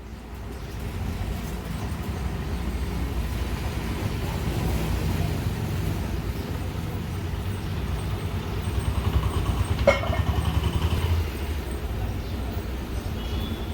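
A steady low mechanical rumble from a running machine, with a fine even pulse, and a single sharp metallic click that rings briefly about ten seconds in.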